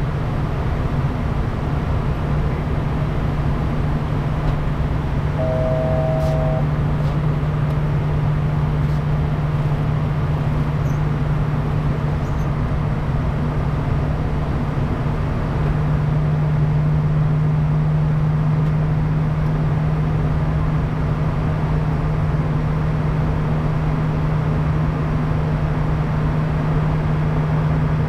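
Steady cabin noise of a Bombardier Challenger 350 twin-turbofan business jet in flight: a loud even rush of engine and airflow over a steady low hum, which grows a little stronger about halfway through. A short electronic tone sounds once for about a second, some five seconds in.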